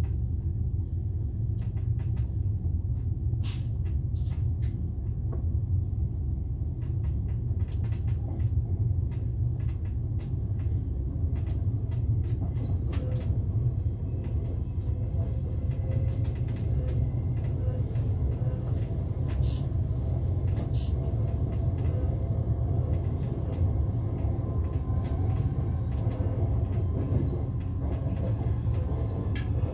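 Steady low rumble of a double-deck S-Bahn push-pull train running on the rails, heard inside the driving cab of the control car as the train leaves the station. Scattered sharp clicks come from the wheels crossing points and rail joints.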